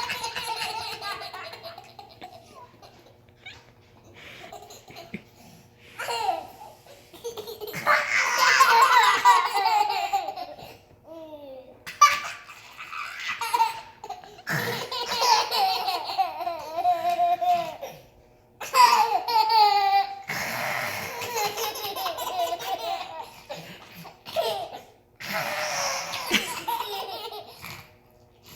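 A young child laughing hard and high-pitched in repeated bouts of several seconds, with short breaks between.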